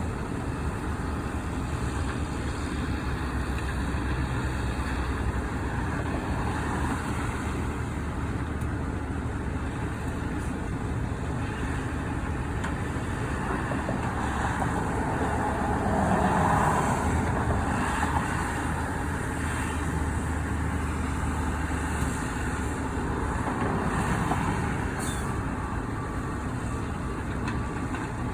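Heavy diesel engines of construction vehicles running steadily, swelling louder for a few seconds about halfway through.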